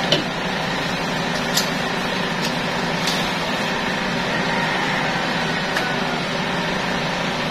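A steady whirring hum, with a few light clicks as small parts are handled and fitted onto an air rifle.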